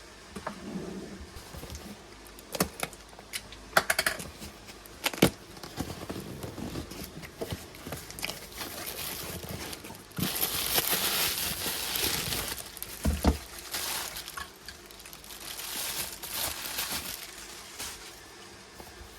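Handling noises: crinkling and rustling with several sharp clicks and knocks, and a louder stretch of rustling about halfway through.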